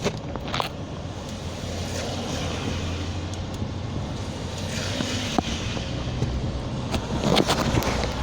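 Steady rumble of street traffic with wind buffeting the microphone, and a couple of faint ticks.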